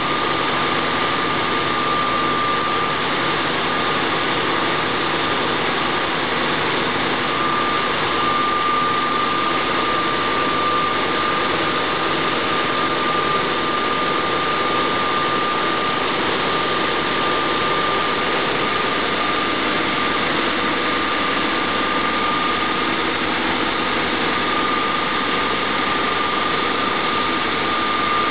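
Large Caterpillar marine diesel engine running at a steady speed, loud and unchanging, with a steady high whine over the engine noise.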